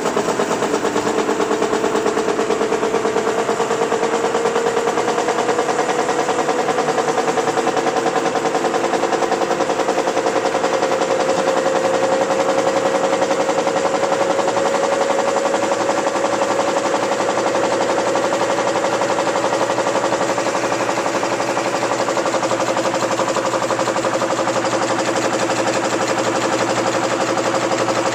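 Tissue-paper converting machine running on a variable-frequency drive, its motor being sped up: a fast, even mechanical clatter with a whine that climbs slowly in pitch over the first half, then holds steady.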